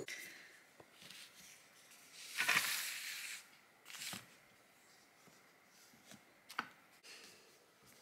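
Quiet handling of books being stacked on a wooden bedside table: a rustling slide about two and a half seconds in, then a few light knocks as books are set down.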